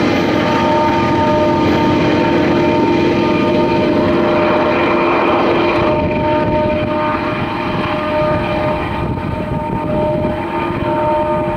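Diesel freight train running by, a steady engine drone with several held tones over rumbling noise. The highest part of the sound fades after about six seconds and the whole eases slightly.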